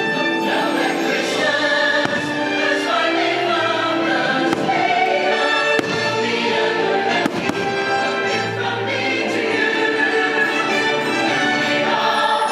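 Choral music of a fireworks show, with a choir singing over instrumental backing. Fireworks burst several times through it as sharp bangs.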